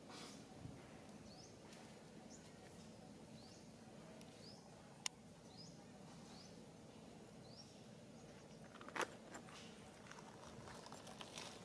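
Quiet forest ambience: faint, short, high rising chirps repeat every second or so, with a single sharp click about five seconds in and a brief crackle about nine seconds in.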